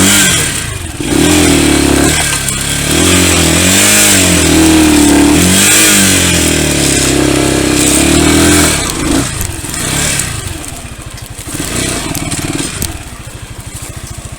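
Pit bike's small single-cylinder engine revving, its pitch rising and falling several times. About nine seconds in it drops away and settles to a quieter, steady idle near the end.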